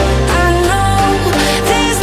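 Background pop music: a sung or synth melody over a steady bass line.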